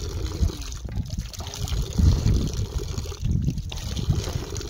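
Spring water running from a metal pipe and splashing, with irregular low rumbling on the microphone that swells about two seconds in and again a second later.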